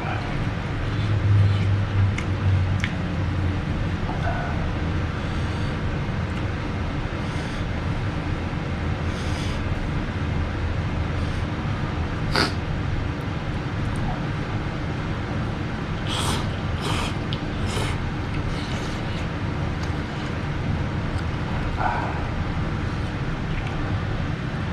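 Eating sounds from a ramen meal: short slurps and mouth noises come and go, with a sharp click of a utensil about halfway through, over a steady low hum.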